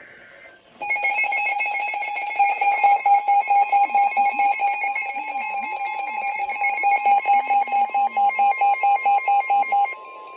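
A weather radio receiver sounding an emergency alert. First comes a short data burst of the alert header. About a second in, a loud, rapid electronic beeping starts over a steady alert tone; the beeping stops just before the end while the tone carries on. It signals an incoming National Weather Service warning.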